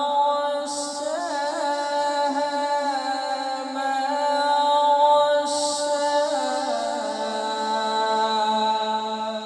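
A man reciting the Quran in the melodic, drawn-out tilawat style, holding long vowels with a wavering ornament on the notes. The pitch steps down about two-thirds of the way through.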